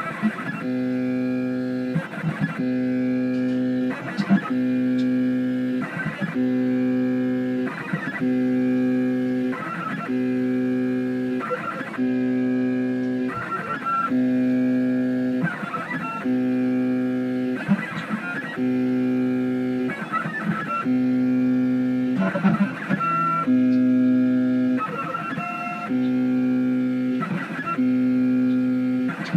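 Background music: plucked guitar in a repeating pattern of sustained chords, changing about every two seconds.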